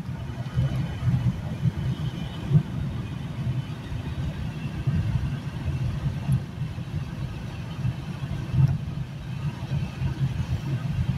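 Car driving over a rough, patched road, heard from inside the cabin: a steady low rumble of engine and tyres, with the car jolting over bumps and a couple of sharper knocks.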